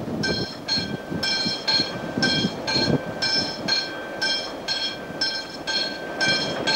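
Freight train of hopper wagons rolling through a curve: the wheels squeal on the rails in a high, steady-pitched tone that comes and goes about twice a second, over the rumble and knocking of the wagons.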